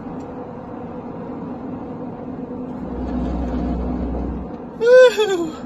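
Steady road and engine noise inside a moving car's cabin, with a low rumble swelling for a second or so midway. Near the end comes a short, loud, falling vocal exclamation.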